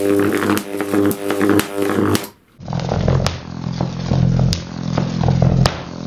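High-voltage electric arc from microwave oven transformers buzzing loudly as it climbs a Jacob's ladder, with sharp snaps as the arc breaks and restrikes at the bottom. About two seconds in the sound cuts briefly, and a lower-pitched arc buzz with similar snaps follows.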